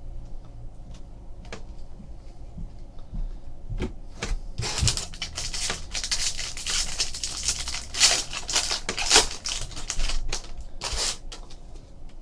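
2015 Bowman Chrome trading cards being handled: a few faint clicks, then about four seconds in a dense run of clicking and crackling rustle as the slick chrome cards are slid and flicked against one another, for about seven seconds.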